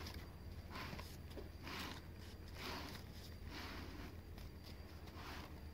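Faint soft rustles of a folded paper pen holder being handled and turned on a table, over a low steady hum.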